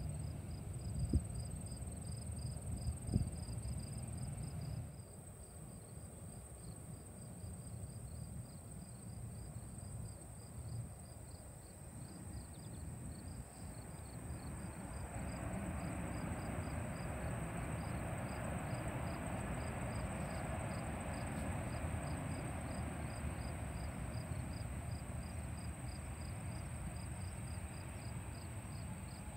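Crickets chirp in a fast, even pulse with a steady high insect whine, over wind rumbling on the microphone and two sharp taps in the first few seconds. About halfway through, the distant jet engines of a Spirit Airlines Airbus at the runway end build up into a broad, steady rush as it powers up for its takeoff run.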